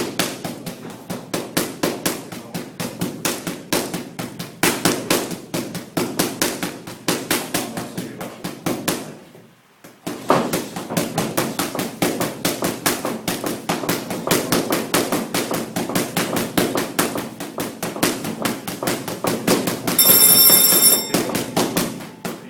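Rapid punches smacking into boxing focus mitts, several a second, with a short break about ten seconds in. Near the end a steady high tone sounds for about a second over the punching.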